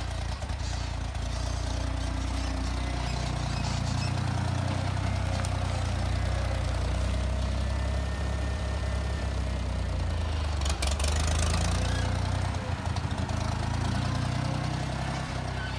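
Ford utility tractor's engine running steadily while the front-end loader works soil and brush. There is a brief noisy clatter about eleven seconds in.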